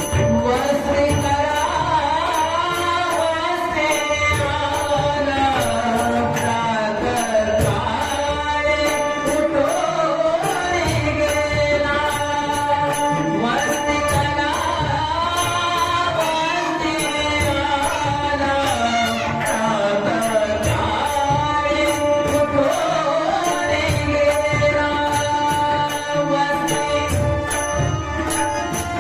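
Devotional bhajan music: a sliding, ornamented melody over a hand drum and small hand cymbals keeping a steady rhythmic beat.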